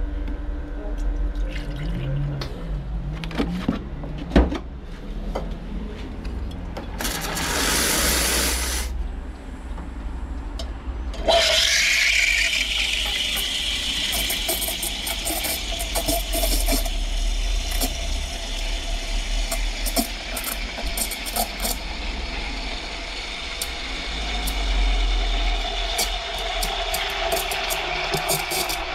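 Espresso machine steam wand: a short purge of steam, then, about eleven seconds in, the wand starts steaming milk in a jug with a steady hiss whose tone slowly shifts as the milk heats.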